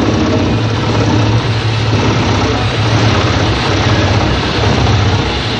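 Mus-Max Terminator 10 wood chipper running steadily, a loud, even machine drone with a low hum underneath.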